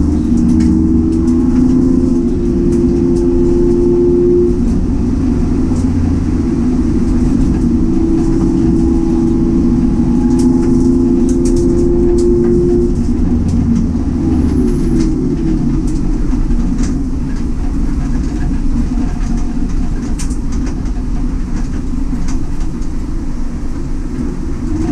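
Citroen C1 race car's engine heard from inside the cabin, holding steady revs for about thirteen seconds. The pitch then shifts and it settles into a lower, steady drone.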